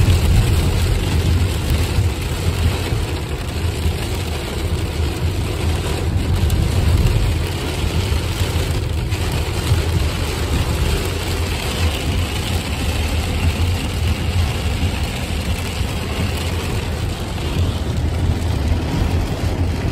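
Heavy rain drumming on a car's windshield and body, heard from inside the cabin over the steady low rumble of the car driving on wet road.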